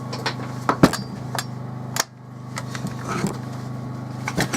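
Short knocks and clatter of a petrol chainsaw's recoil starter being yanked and the saw handled, over a steady low hum. The starter is tight, so the cord pulls hard against the engine's compression and the engine does not fire.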